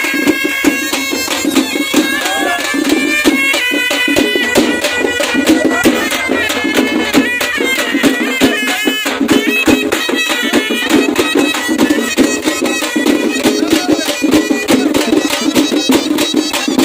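Traditional folk music: a wind instrument plays a high melody of held, stepping notes over fast, steady drumming.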